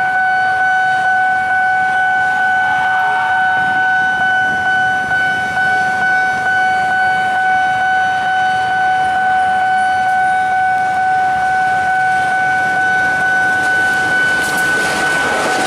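Railway level-crossing warning alarm holding one steady tone without a break. Near the end a diesel locomotive's engine and wheels come up loud as it reaches the crossing.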